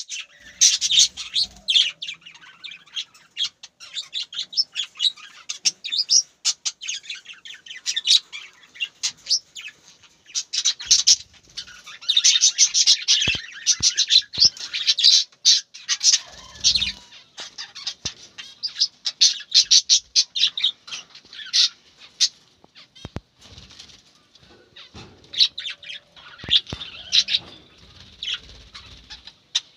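Small birds chirping: a dense, busy stream of short, high chirps that goes on without pause.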